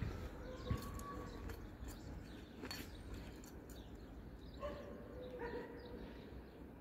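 A dog whining faintly in two drawn-out cries, each about a second long, one near the start and one about five seconds in. A few soft knocks and scrapes of a hand trowel in garden soil come between them.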